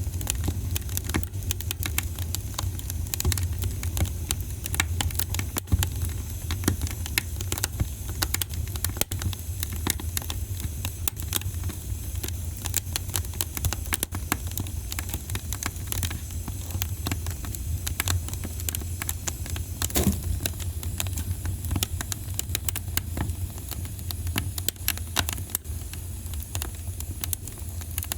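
Wood fire crackling in a fireplace: many irregular small pops and snaps over a steady low rumble, with one louder pop about twenty seconds in.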